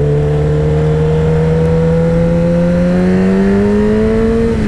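Kawasaki Ninja ZX-10R's inline-four engine pulling steadily in gear under acceleration, its pitch rising slowly, over wind noise. The pitch dips briefly right at the end.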